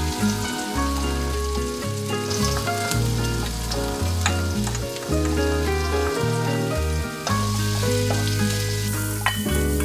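Shallots and garlic sizzling in oil in a metal wok while a spatula stirs and scrapes. Diced onion is added about four seconds in. Background music with a bass line plays throughout.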